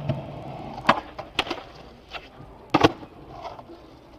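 Skateboard wheels rolling on concrete, with several sharp clacks of the wooden deck hitting the ground. The loudest clack comes near the three-second mark.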